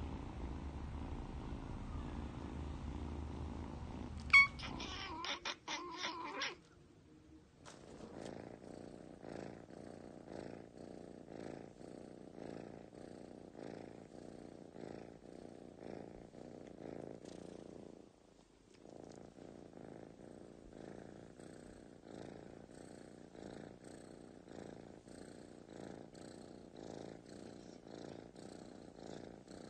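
Cat purring, rising and falling with each breath in an even rhythm, while it is combed. About four seconds in, before the purring, there is one loud sharp click followed by a brief clatter.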